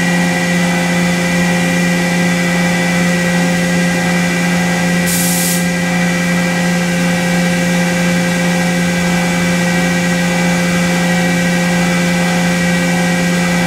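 CNC milling machine cutting a golf putter's face under coolant spray: a steady hum with several fixed tones from the spinning spindle and cutter. A brief hiss comes about five seconds in.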